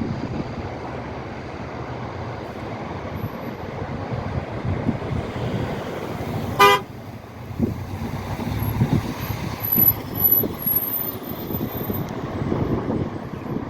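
Road traffic noise with a rumbling, gusty low end, and one short vehicle horn toot about halfway through.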